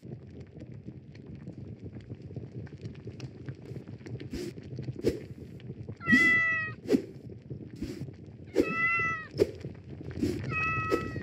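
Cat meowing three times in the second half, the calls about two seconds apart, over a low steady rumble with a few faint clicks.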